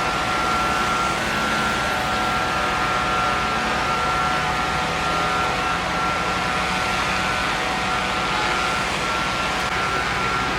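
Heavy truck engine idling steadily: a constant rumble with a steady high whine over it.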